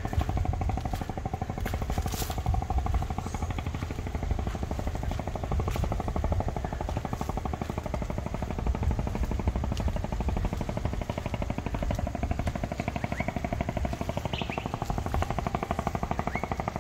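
A small engine running steadily with a rapid, even pulsing.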